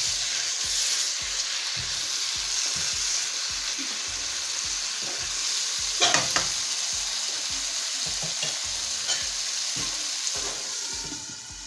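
Okra, onion and tomato curry sizzling steadily in a wok while a silicone spatula stirs it, scraping the pan now and then, once more loudly about halfway through. Near the end the stirring has stopped and the sizzle grows softer.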